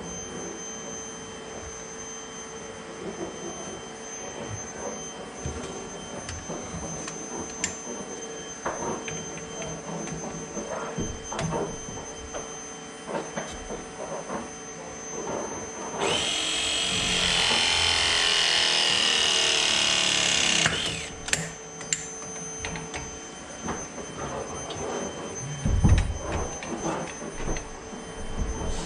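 Cordless ProPress crimping tool running for about five seconds as its jaws press a copper fitting onto a valve, then stopping abruptly. Small clicks and knocks of pipe and fitting handling come before and after it.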